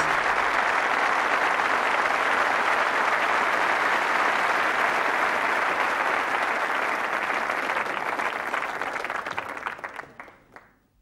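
Studio audience applauding at the end of a sitcom episode, a steady clapping that fades out about ten seconds in.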